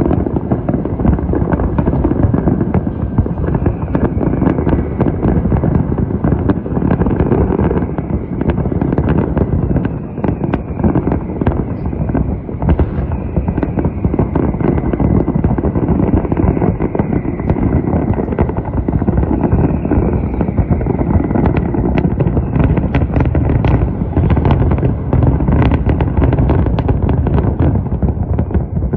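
A fireworks display: a dense, continuous barrage of bangs and crackling, with several falling whistles through the middle.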